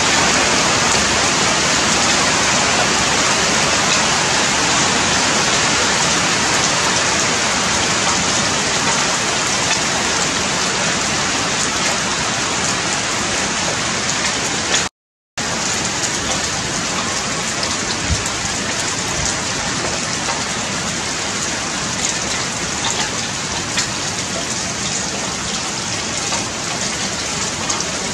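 Steady, even hiss of heavy rain, with a short break to silence about halfway through.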